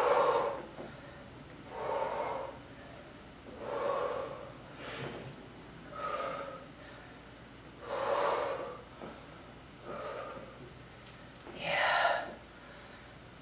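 A woman breathing hard during dumbbell squats, one heavy breath about every two seconds in time with her reps.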